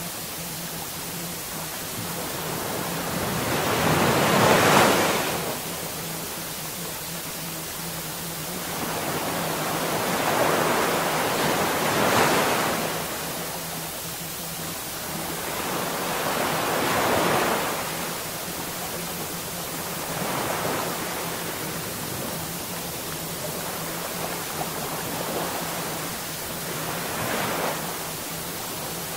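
Rushing noise like ocean surf, swelling and falling back every few seconds over a faint steady low hum: the wave-noise bed of a subliminal audio track.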